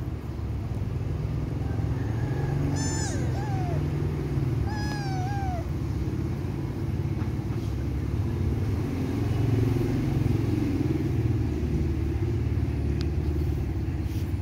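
A kitten meowing twice, about three and five seconds in: short, high calls that bend in pitch, the first dropping at its end, over a steady low rumble.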